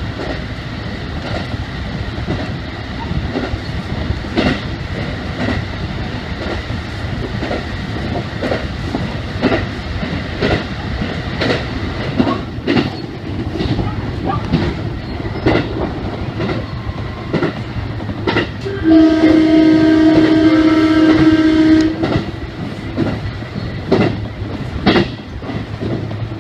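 A train running past with a steady rumble and a repeated clickety-clack of its wheels over the rail joints, about once a second. Near the end its horn sounds loudly for about three seconds, warning at the level crossing.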